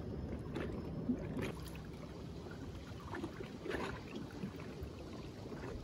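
Small waves washing steadily against a rocky shoreline, with a few faint clicks.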